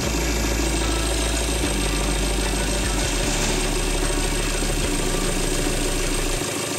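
Maruti car engine idling steadily with the gearbox removed, its bare flywheel spinning; the engine is run to check the newly fitted rear main oil seal for leaks.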